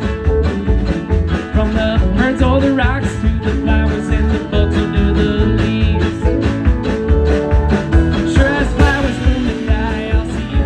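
A string band playing country-rock live, with guitar over a steady bass beat. A lead instrument plays bending, sliding notes.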